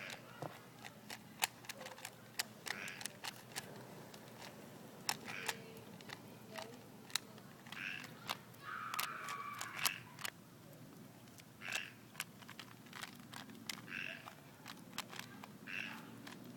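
Plastic Rubik's cube being turned quickly by hand in a speed solve: a run of sharp, irregular clicks and clacks as the layers snap round. Short calls sound faintly in the background every couple of seconds.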